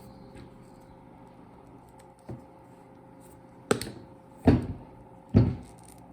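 Cutting tool snapping as the old welding cable is cut and its insulation stripped: four sharp clicks, one about two seconds in and three more close together in the second half.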